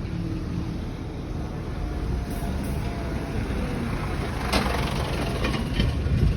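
Steady low engine rumble of heavy vehicles, with a brief hissy surge about four and a half seconds in.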